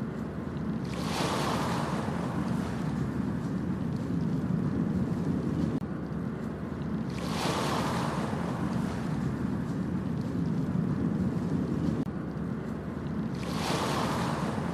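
Ocean waves breaking and washing up the beach three times, about six seconds apart, each a rising then fading hiss, over a steady low rumble of surf.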